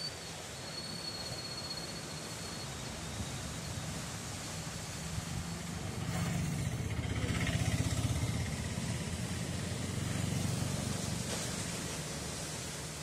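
Sea surf: waves breaking and washing in over the shore in a steady rush, swelling louder as a wave breaks about six to eight seconds in and again around ten seconds.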